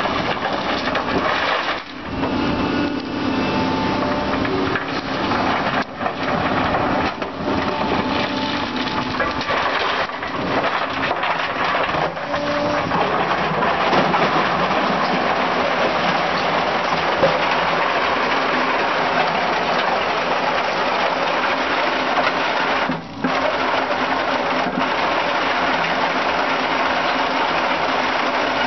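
Excavator-mounted BFR 1100 cone crusher attachment crushing stone: a steady, dense crackling and clattering of rock breaking inside the cone, with a few brief breaks.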